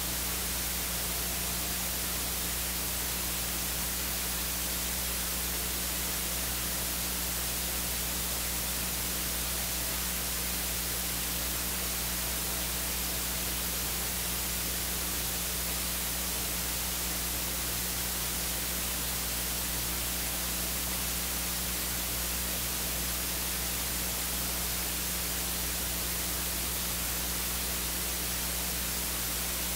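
Steady electronic hiss with a low hum underneath, the noise floor of the recording or sound system. It stays unchanged throughout.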